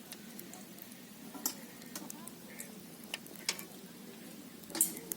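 A handful of irregular light clicks and knocks, the loudest near the end, over a faint steady background.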